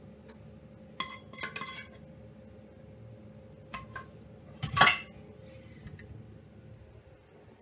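A metal spoon clinks and scrapes against a saucepan in a few short, light strokes while food is served from it, then there is one louder clatter of cookware about five seconds in.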